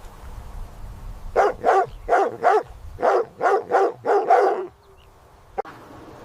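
A dog barking, about nine quick barks in pairs and short runs, followed by a single short click near the end.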